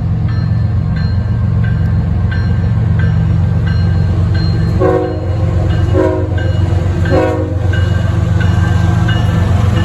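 Norfolk Southern freight train passing with a steady heavy rumble and a light repeating high ringing over it. About halfway through a train horn gives three short blasts about a second apart.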